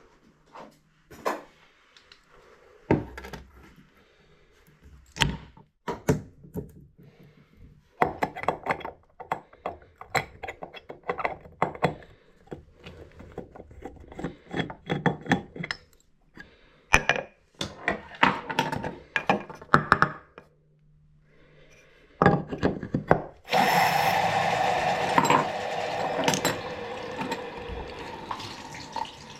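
Metal hand tools clinking and knocking on a tub-and-shower valve as an old Valley cartridge is worked out, in irregular bursts. About 23 seconds in, a loud rush of water starts and slowly fades.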